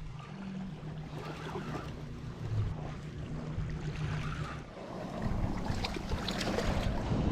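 Wind and surf on an ocean beach, with a low steady motor drone underneath that stops abruptly about four and a half seconds in, leaving the wind and waves.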